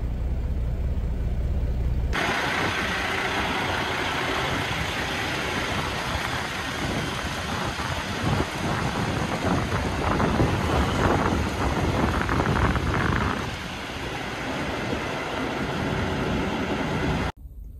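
A steady low hum in a semi-truck cab, then after an abrupt cut about two seconds in, a loud, even rush of outdoor noise beside a parked semi tractor: wind on the microphone mixed with engine and traffic sound. It cuts off suddenly near the end.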